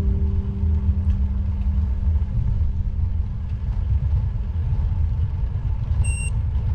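Strong wind buffeting a GoPro 360 camera's microphone on a moving bicycle, a steady rough low rumble. A brief high-pitched chirp about six seconds in.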